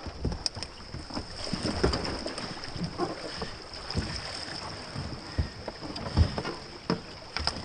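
Kayak paddle strokes and splashes with irregular dull knocks of paddle and hull, over a steady rush of river water.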